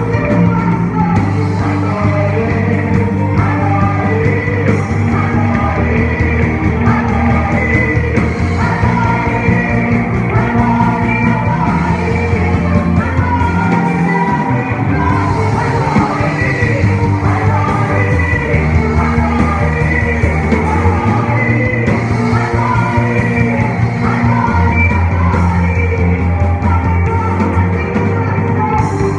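Christian praise music: a band with electric instruments and a bass line changing note every couple of seconds, with singing over it.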